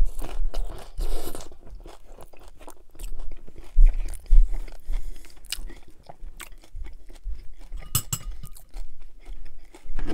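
Close-miked eating of a crunchy hard-shell chicken taco: a loud crunching bite right at the start, then chewing with scattered crackles and crunches.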